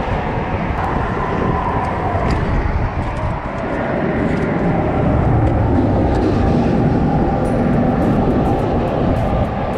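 Steady wind rushing and buffeting on the microphone, with a few faint clicks of handling near the end.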